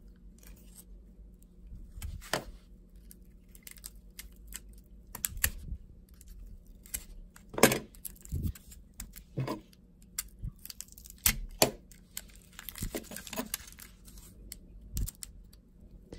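Hands handling a taped cardboard card mailer: scattered, irregular clicks, taps and crinkles of cardboard and tape, with the sharpest click about eight seconds in.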